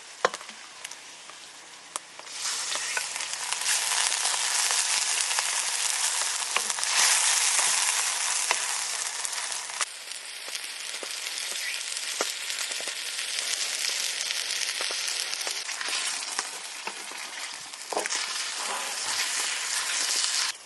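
Food sizzling and frying in hot fat, a dense hiss with scattered crackles that starts abruptly about two seconds in.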